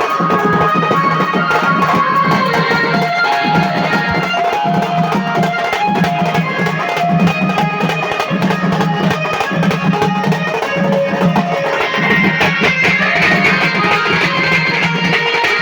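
Instrumental passage from a live melody band: a guitar melody over drums and a steady pulsing bass, with no singing.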